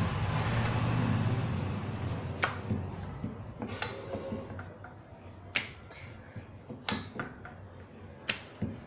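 Wooden rolling pin rolling roti dough over a round stone rolling board, a steady low rumble for about the first two seconds. Then come scattered sharp clicks and taps, about seven of them, as the dough is lifted, turned and flipped on the board.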